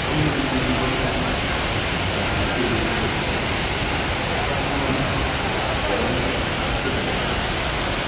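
The Rain Vortex, the world's tallest indoor waterfall, pouring as a heavy curtain of water from the roof opening into the pool below: a steady rush of falling and splashing water, with faint voices of onlookers beneath it.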